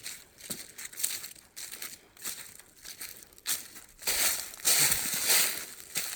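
Footsteps crunching through dry leaf litter and debris on a woodland trail at walking pace, about two steps a second, with a louder stretch of scuffing and rustling in the second half.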